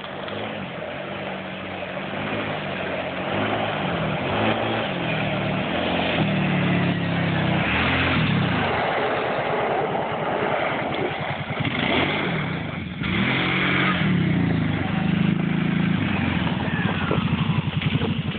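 750 four-wheeler ATV engine revving up and down again and again as the quad slides about, getting louder over the first few seconds. The engine drops off briefly about two-thirds of the way through, then revs again close by.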